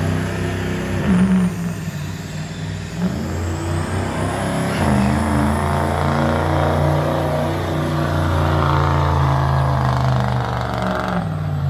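Diesel pickup truck's engine running hard under load as it pulls a weight-transfer sled down the track. The engine's pitch dips and climbs back a few times in the first five seconds, then holds steady.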